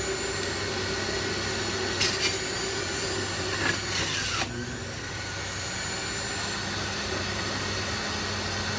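Sharper Image centrifugal juicer's electric motor running steadily. About two seconds in, and again for about a second around four seconds in, there is a rougher grinding as star fruit is pushed down the chute and shredded.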